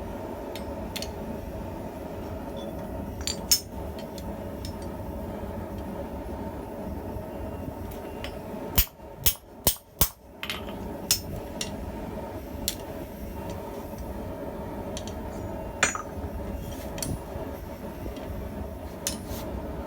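Four quick hammer blows on steel at the anvil about nine seconds in, with scattered lighter taps and clinks of metal tools, over a steady hum.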